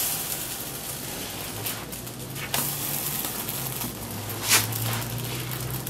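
Pancake batter frying in a hot pan with a steady sizzle over a low hum. Twice a pancake is turned with a spatula, a short scrape and slap, about halfway through and again near the end.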